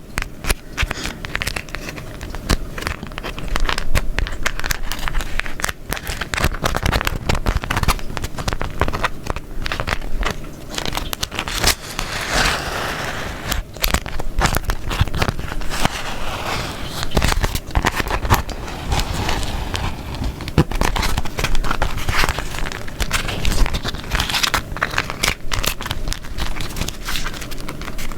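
Beeswax food wrap being crumpled and folded by hand: dense, sticky crackling and crinkling that swells and eases in irregular handfuls.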